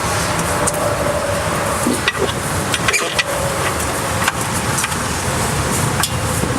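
Steady low background rumble, like outdoor traffic, with a faint steady hum and a handful of light clicks and taps scattered through it.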